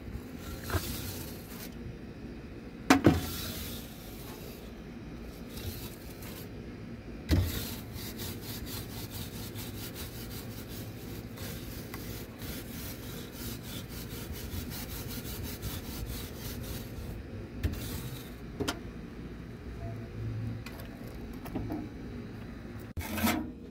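Stiff bristle brush scrubbing and sweeping ash across the ceramic brick floor of a wood-fired pizza oven toward a metal dustpan, a steady scraping. Two sharp knocks come about three and seven seconds in.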